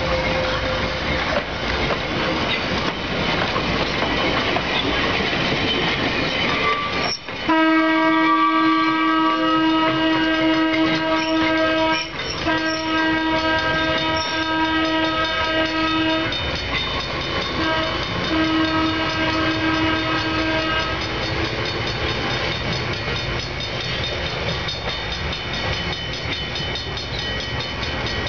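Vintage electric streetcar running on the rails with an even rumble. From about seven seconds in, a steady droning tone with many overtones joins it for roughly thirteen seconds, broken into several long stretches, then stops, leaving the rumble.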